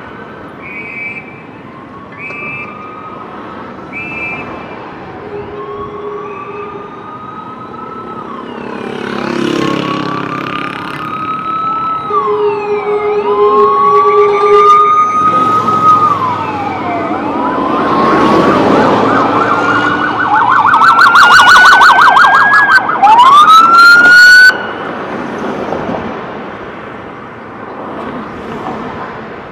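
Several police sirens passing in a moving convoy, their wails rising and falling over one another. A fast yelping siren builds to the loudest part and cuts off suddenly a few seconds from the end. Short repeated high beeps sound in the first few seconds.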